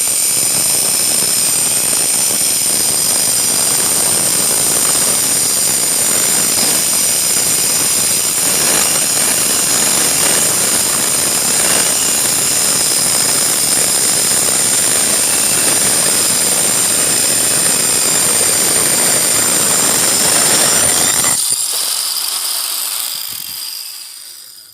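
Hand angle grinder fitted with a wood-cutting circular saw blade, running at high speed with a steady high whine while cutting 2 cm plywood. About three-quarters of the way through the cutting noise stops and the motor's whine winds down as it is switched off.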